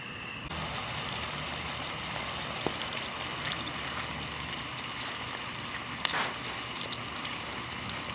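A pan of chicken livers in adobo sauce and cream simmering on the stove: a steady frying hiss that gets louder about half a second in. Two sharp clicks cut through it, the louder one about six seconds in.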